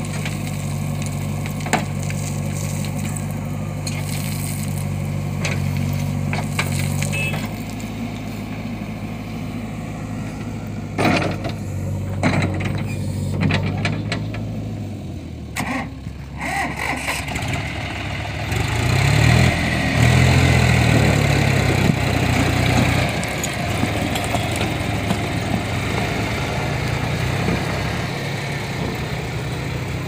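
Diesel engines of a JCB 3DX backhoe loader and a John Deere tractor running steadily, with a few sharp knocks near the middle. About two-thirds of the way through the engine sound gets louder as the tractor pulls away with a loaded trolley of soil.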